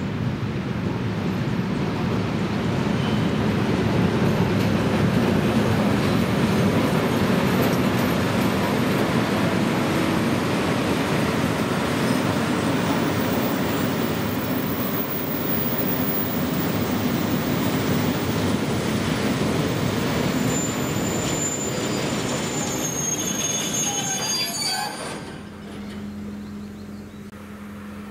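Freight train of hopper wagons rolling past behind a class 741 diesel locomotive: a steady loud rumble of wheels on rail, with high-pitched wheel squeal coming in about 20 seconds in. About 25 seconds in it cuts off, leaving the quieter steady hum of a diesel locomotive's engine.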